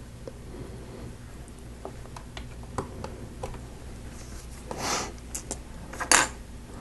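Plastic Lego pieces handled and pressed together: scattered light clicks, a brief rustle about five seconds in, and a louder clack just after six seconds.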